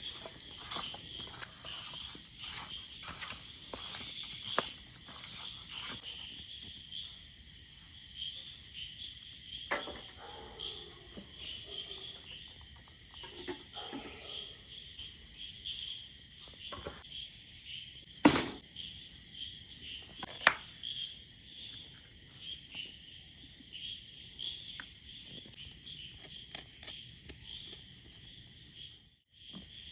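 Insects, crickets by their sound, chirring steadily in a fast pulsing trill, with three sharp knocks over it, the loudest about two-thirds of the way through.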